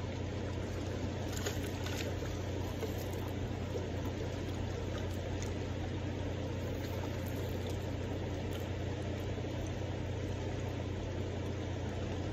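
Steady rushing of a fast-flowing river current, with a few light ticks about a second and a half in.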